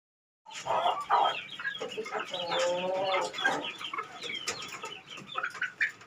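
Domestic chickens clucking and calling, with many short high calls. There is one drawn-out wavering call about two seconds in. The sound starts half a second in, after silence.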